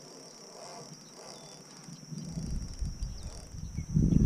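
Steady high-pitched insect buzzing from the marsh grass. From about two seconds in, a low, uneven rumble of wind buffeting the microphone builds and becomes the loudest sound near the end.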